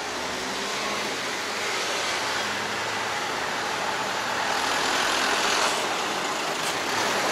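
Road traffic going by on a city street, a steady rush of passing cars. About five seconds in it swells as a small truck passes close by.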